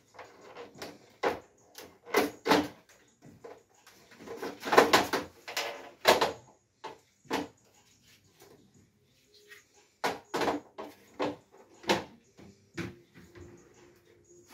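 Plastic parts of a Cadillac Escalade third brake light assembly being handled and pulled apart: a string of sharp clicks and snaps, with a longer rubbing stretch about five seconds in.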